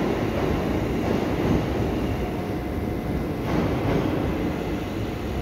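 Passenger multiple-unit train moving slowly along a station platform: a steady rumble of wheels on the track.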